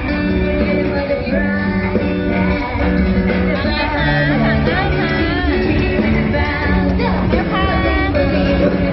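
Background music: a song with a singing voice over held instrumental notes.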